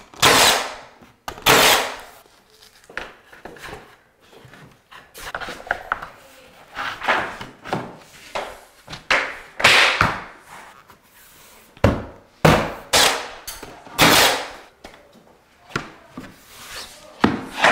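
Cordless nail gun firing nails through shiplap boards into the wall, a sharp bang about once a second at an irregular pace, mixed with knocks of boards being pressed into place.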